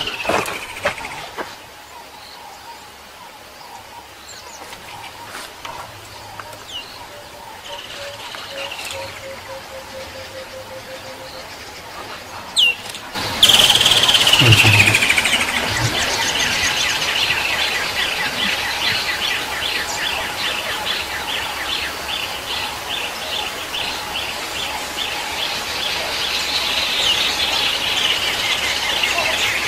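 Birds calling: a few short falling whistles at first, then, after a jump in loudness about thirteen seconds in, a long falling whistle and a fast trill of repeated high notes that runs on.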